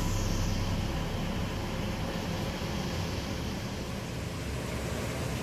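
Steady hiss with a low hum, like a fan or air conditioner running, with no clear events over it.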